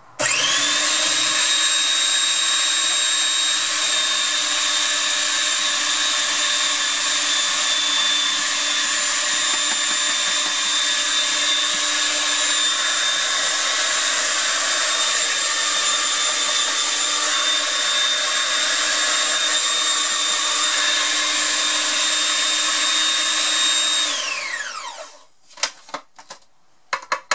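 A small electric food processor runs at full speed, blending flour, butter and salt into pastry crumb with a steady high whine. It spins up at once, runs for about 24 seconds and then winds down with a falling whine, followed by a few clicks and knocks as the bowl and lid are handled.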